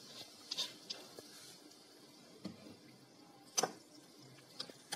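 Freshly poured soda faintly fizzing over crushed mint and lemon, with a few small clicks and one sharp clink a little past three and a half seconds in, as a spoon and glass are handled.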